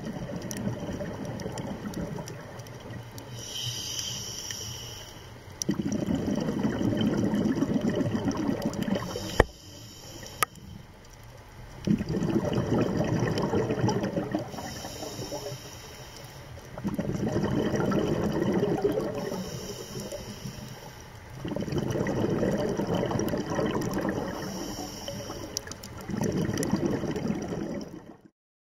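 Scuba diver's regulator breathing underwater: a short hissing inhale, then a long bubbling exhale, repeating about every five seconds.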